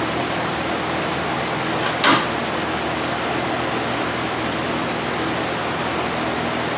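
Steady rushing air noise with a faint low hum, and one brief louder hiss about two seconds in.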